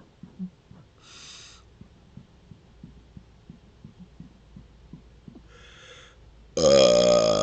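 A man swallowing air in a quick series of soft gulps, with a couple of short breaths between them. Near the end a loud, long, pitched burp begins as the swallowed air comes back up.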